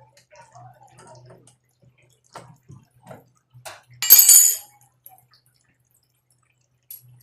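Hand tools clicking and knocking on a front-load washing machine as it is taken apart, with one loud, brief clatter with a ringing edge about four seconds in.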